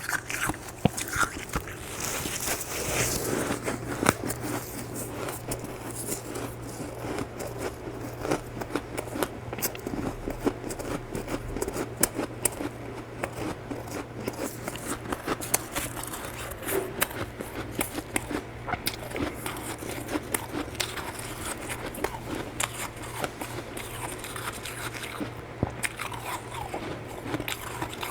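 Close-miked biting and chewing of powdery freezer frost: a dense run of crisp, irregular crunches and crackles.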